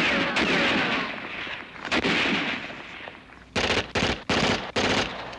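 Gunshots in a firefight: one shot with a falling whine trailing after it, another about two seconds later, then four quick shots in a row near the end.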